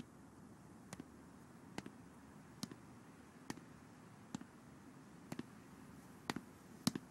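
Footsteps of boots on stone paving at a slow, even walking pace, about one quiet step a second, some with a double heel-toe click, over a faint hiss.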